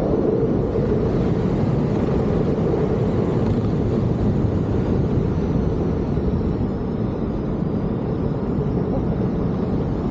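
Steady wind rushing over the camera microphone as a skydiver flies under an open ram-air parachute canopy.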